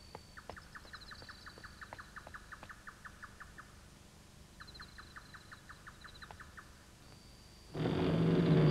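Night ambience: a faint, rhythmic chirping trill, about eight chirps a second, in two runs a few seconds long over a thin high whine. Near the end a loud, low swell of music with sliding, falling pitches breaks in.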